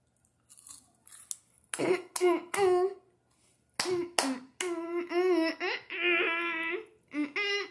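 A young girl's wordless vocal sounds while chewing a crunchy chocolate: a few short voiced syllables, then a longer drawn-out one. Faint crunching of chewing comes in the first second or so.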